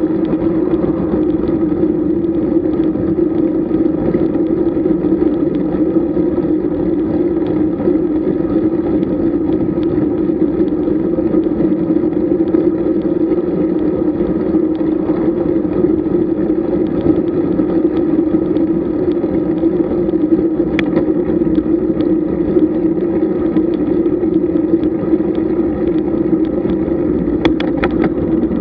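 Steady wind rush and tyre rolling noise picked up by a camera travelling with a road bike at speed, with a sharp click about two-thirds through and a few more near the end.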